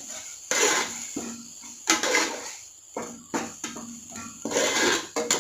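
A ladle stirring thick onion-tomato masala frying in oil in a pot, in irregular scraping, sloshing strokes about once or twice a second. The masala is being cooked until the oil separates.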